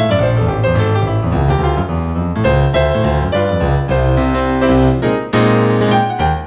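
Background piano music: a flowing melody over low bass notes, loud and continuous.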